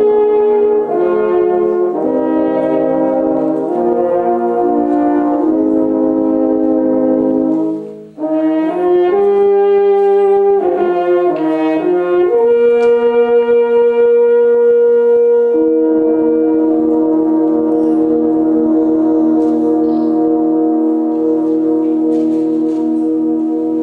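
French horn ensemble playing in sustained chords: moving chords with a short break about eight seconds in, then a long final chord held for about eleven seconds, a lower note joining partway through, released near the end.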